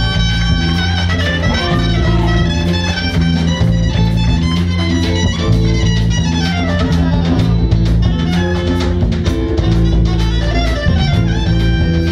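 Live band playing an instrumental number: a trumpet lead over electric guitar, bass and drum kit.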